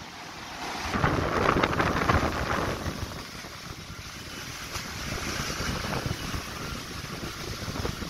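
Strong gusting wind with very heavy rain, the wind also buffeting the microphone. A gust swells about a second in and eases after a couple of seconds, then the storm noise carries on steadily.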